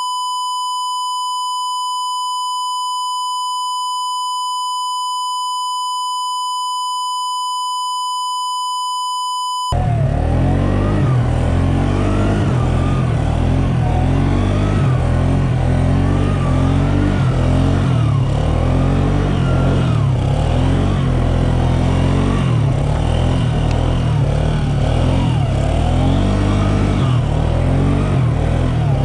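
A steady, buzzy 1 kHz test-tone beep held for about ten seconds, cutting off abruptly. Then a loud, continuous motor sound whose pitch keeps rising and falling, like vehicles revving as they drive.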